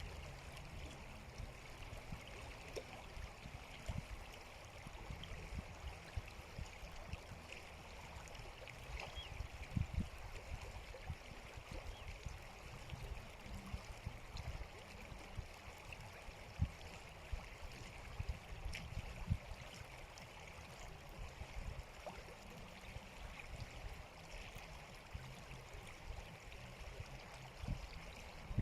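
A stream flowing steadily, with irregular low rumbles underneath.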